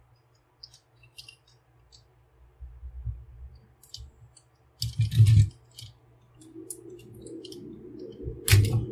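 Hard plastic clicks and clatter from a transforming robot toy figure and its rifle accessory being handled and fitted together. Short, sharp clicks are scattered throughout, with a louder burst of clatter about five seconds in and a sharp click near the end.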